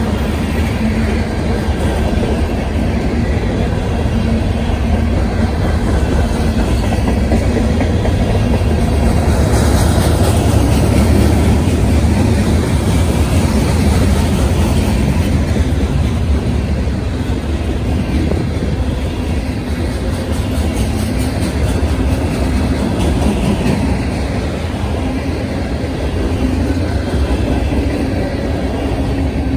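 Freight train cars rolling past at close range: a steady, loud rumble of steel wheels on the rails.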